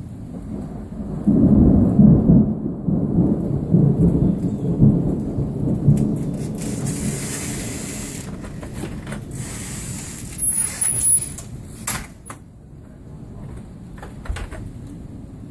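Thunder rolling over rain: a long, low rumble that swells about a second in and slowly dies away over several seconds. Brief hissing and a few sharp clicks follow in the second half.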